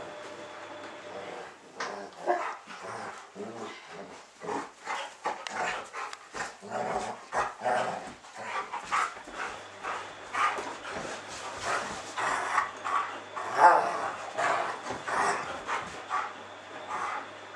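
Two giant schnauzers at rough play, barking in short repeated bursts amid scuffling.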